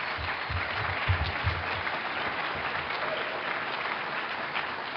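Audience applauding, a roomful of people clapping steadily.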